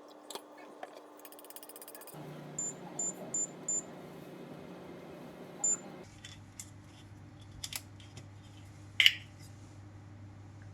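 Four short high electronic beeps in quick succession, then one more a couple of seconds later, like an appliance's buttons being pressed. After that come scattered light clicks and one sharp clink near the end.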